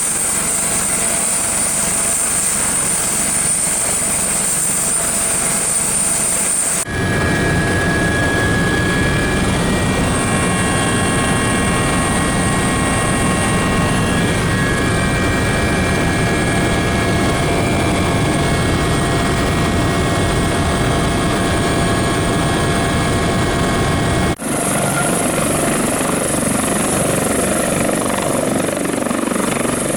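Dauphin helicopter running in flight: a steady mix of rotor and engine noise with a constant high turbine whine. The sound changes abruptly about 7 seconds in and again near 24 seconds.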